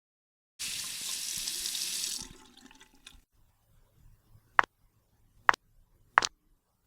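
Water running from a tap for about a second and a half and then stopping, followed by three sharp clicks about a second apart.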